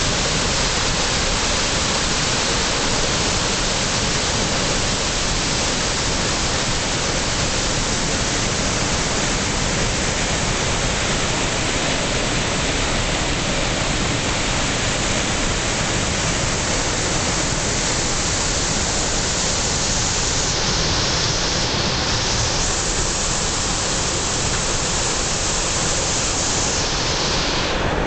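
Waterfall in Maligne Canyon, falling water rushing steadily as an even, unbroken wash of noise.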